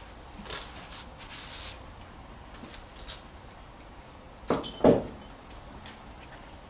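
Rustling handling noise, then two sharp clunks in quick succession a little past halfway, the loudest sounds, as objects are handled under a raised car.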